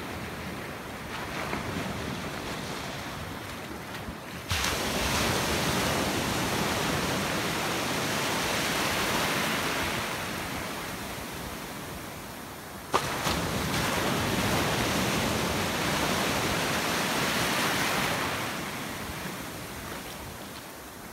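Sea surf breaking and washing through the shallows, with wind on the microphone. The rushing swells up suddenly and fades away twice.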